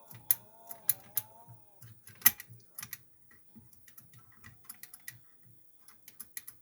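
Small irregular metallic clicks and taps from a lever-lock pick working the levers inside an ERA sash lock as they are lifted and set. The sharpest click comes about two seconds in, and a faint wavering tone runs under the first two seconds.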